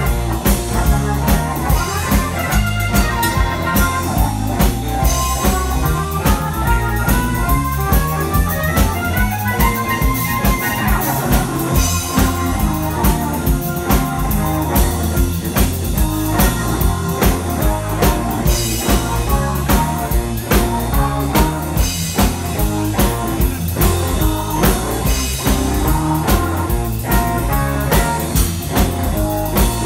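Live blues band playing electric guitar, bass guitar, drum kit and keyboard over a steady drum beat. A run of notes climbs in pitch from about four to ten seconds in.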